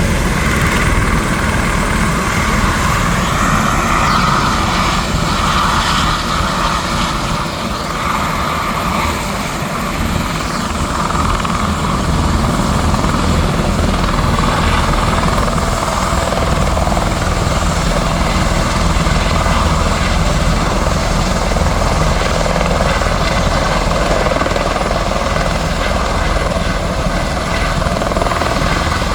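Turbine helicopter running close by: a steady rotor beat under a constant turbine whine, easing slightly for a few seconds near the start before building back.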